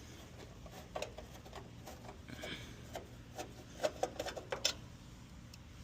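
Hand work on air-conditioner wiring and a contactor: scattered small clicks and taps of tools and parts, with a brief scrape about halfway through and a quick cluster of clicks a little before the end.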